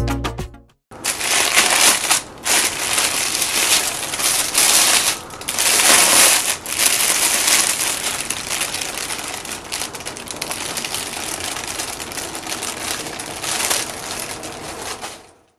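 Clear plastic bag crinkling and rustling as a large telephoto lens is pulled out of it by hand, loudest about two and six seconds in and weaker near the end. Music cuts off in the first second.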